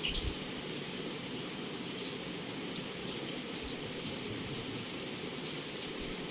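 Heavy rain falling steadily against a window, a constant hiss with scattered sharper drop taps and a brief louder spatter right at the start.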